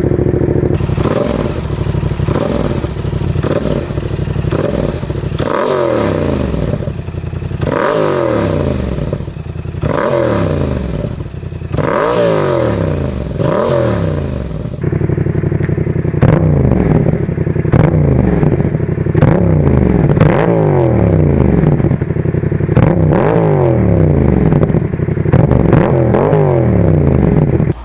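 Yamaha MT-07's 689 cc parallel-twin engine through a Roads Italia Thunder aftermarket exhaust with its dB killer fitted, revved from idle in a long series of short blips. The revs come quicker and louder after about fifteen seconds.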